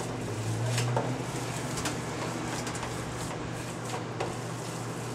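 Hands squeezing and mixing raw ground beef meatloaf mixture in a roasting pan: faint soft squishing with a few light clicks, over a steady low hum.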